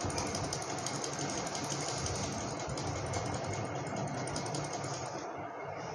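A small machine running steadily with a fast, even rattle; it starts abruptly and fades out near the end.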